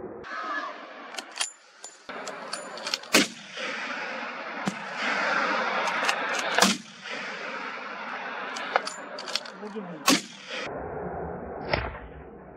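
Hunting guns firing a rapid series of shots at wild boar: a dozen or so sharp cracks spread over about ten seconds, some loud and near, others fainter and farther off, over a steady background hiss.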